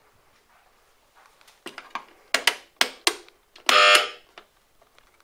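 Homemade fire alarm horn sounding in fits: several short chirps, then a buzzing blast of about half a second near the end, as the system is tested by hand. The horn only works intermittently, a sign of trouble in the system.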